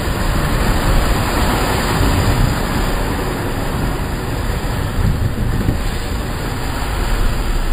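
Off-road 4x4 ploughing through a deep mud hole: a steady rushing wash of spraying mud and water over a low rumble.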